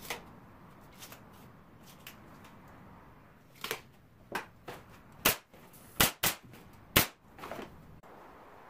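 Pneumatic nail gun firing into wood: four loud, sharp shots about a second apart, after several lighter knocks and clicks.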